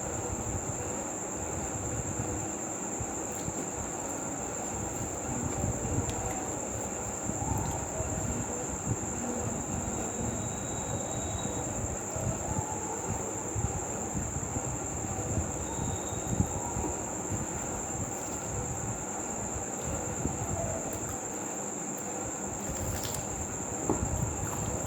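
Close-miked eating sounds: chewing and mouth noises from eating paratha and potato curry, with small irregular clicks. Under them runs a steady high-pitched whine.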